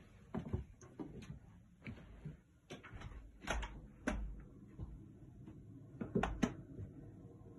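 Irregular light knocks and thumps of footsteps on a wooden floor, with a few heavier thuds in the middle and near the end, in a small room.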